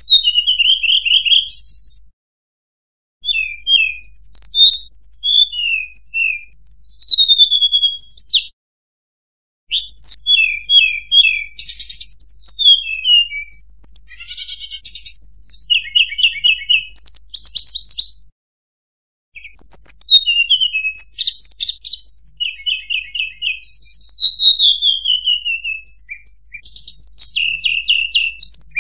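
Recorded song of a hill blue flycatcher (tledekan gunung) played as a bird-trapping lure: quick, high whistled phrases that rise and fall, in bouts of several seconds. The recording cuts to silence briefly three times, about two, eight and eighteen seconds in.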